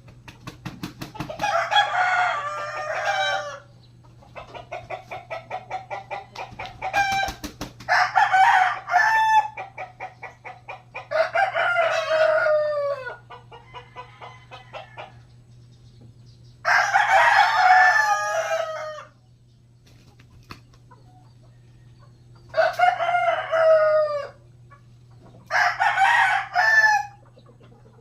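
Rooster crowing six times, each crow about two seconds long, with a quick run of rapid clucking between the first and second crows.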